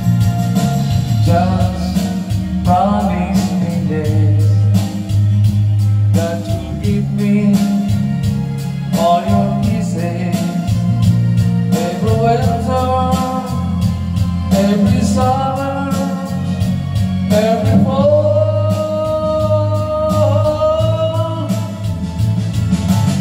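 A man singing through a handheld microphone over backing music, holding long wavering notes.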